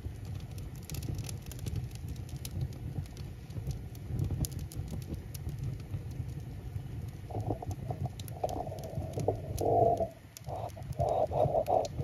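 Birch-log wood fire burning in a masonry baking oven: crackling, with scattered sharp pops over a steady low rumble of flame and draft. From about halfway through, louder spells of flame noise come and go as the fire takes hold.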